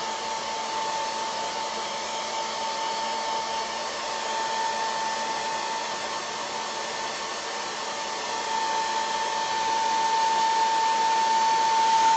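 Handheld hair dryer blowing steadily with a steady high whine, drying a wet coat of crackle medium on a ceramic spoon; it grows a little louder near the end.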